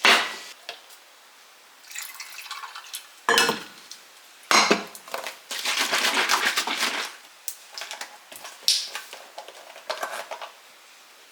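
Kitchen clatter of dishes and utensils: several knocks and clanks as things are handled and set down, with a couple of seconds of busier rattling in the middle.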